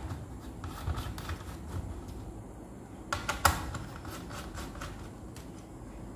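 Scattered small plastic clicks and taps as a slim tool works the connectors on a microwave oven's control board, with the sharpest pair of clicks about three seconds in.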